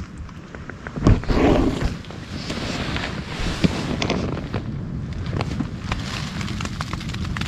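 Strong wind buffeting a tent, a steady rush with the fabric flapping in small irregular clicks. A louder knock and rustle of handled gear about a second in.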